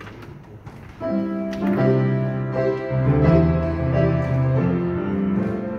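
Slow keyboard music of held chords, starting about a second in after a moment of faint room sound.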